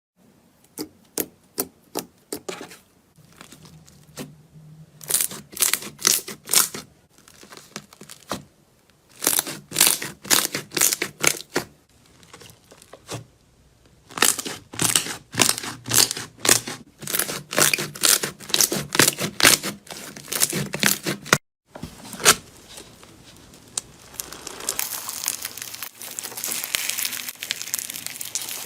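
Slime being squeezed and pressed by hand, giving bursts of rapid crackling and popping clicks. After a short break about 21 seconds in, it turns into a denser, steadier crinkling.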